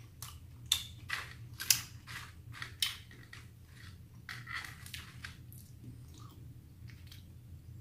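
Close-up chewing of fishballs, with a run of sharp mouth clicks and crunches, loudest in the first three seconds and softer around four to five seconds.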